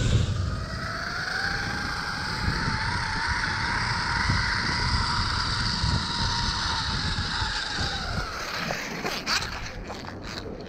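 Zipline trolley pulleys rolling fast along a steel cable, a steady whine that rises slightly at the start, holds, then dies away as the rider slows at the end of the line. There is a sharp clack near the end, and low wind rumble on the microphone throughout the ride.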